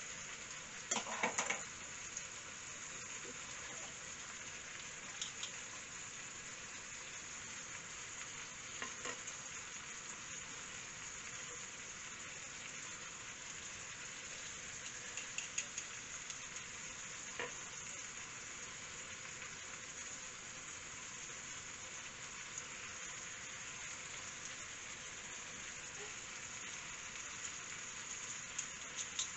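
Meat and onions in a clay tagine sizzling steadily over the heat, with a few light metal clicks from a garlic press being squeezed, the loudest about a second in.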